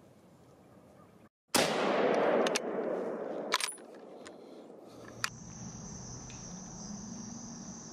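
A single .30-06 rifle shot goes off after a brief dead cut about a second and a half in, its echo rolling away over about two seconds. A few sharp metallic clicks follow, and from about five seconds in a steady high-pitched whine holds.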